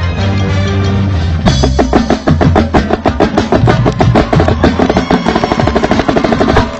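Marching band playing: sustained brass chords, then from about a second and a half in, a marching snare drum heard close up in fast, rapid strokes over the band's continuing chords.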